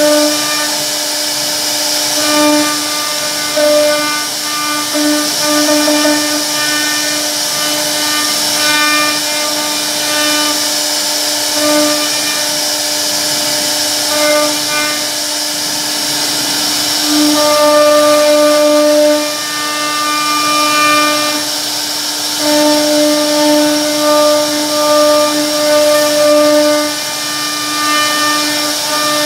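CNC router spindle carving a relief pattern into a wooden door panel. It gives a steady whine over the noise of the bit cutting wood, growing louder in stretches as the cut deepens and eases.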